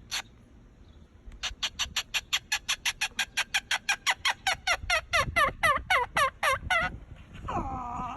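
A pet parrot giving a fast run of short calls, about five or six a second, each note sliding downward, getting louder as it goes. It ends with one longer, wavering call.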